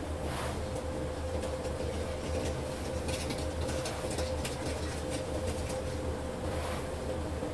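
A machine running steadily, with a low hum and a constant mid-pitched tone, and short hissing bursts now and then.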